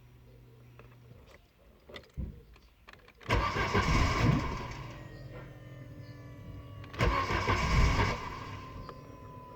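Starter cranking a 2004 Opel Zafira's 1.8 petrol engine in two short attempts, about three and a half seconds apart, each lasting about a second and a half before dying away. The engine turns over but does not start.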